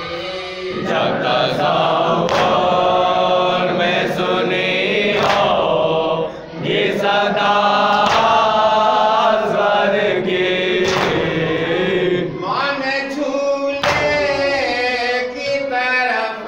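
Group of men chanting a noha, a Shia lament, together in a sustained melodic line. Sharp hand strikes, typical of matam chest-beating, fall roughly every one to two seconds.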